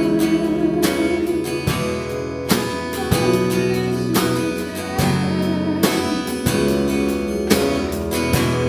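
Worship band playing an instrumental passage, led by strummed acoustic guitar over sustained chords, with a steady beat.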